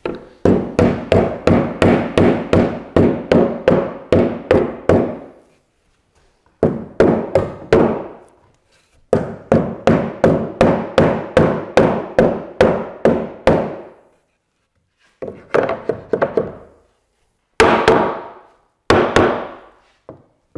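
Yellow-handled claw hammer driving wooden wedges into the housed tread joints of a staircase skirt board, wedging the treads tight. Runs of blows at about three a second, with short pauses between runs, then a few single strikes near the end.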